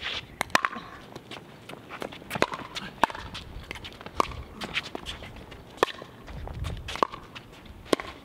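Doubles pickleball rally: a hard plastic pickleball popping off paddles, a sharp pop about once a second, with shoes scuffing on the hard court between hits.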